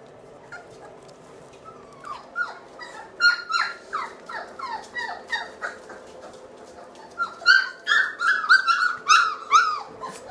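Three-week-old Labrador puppies whimpering and squealing: short, high cries that drop in pitch, coming in quick series. A run of them starts about two seconds in, and a louder run comes near the end.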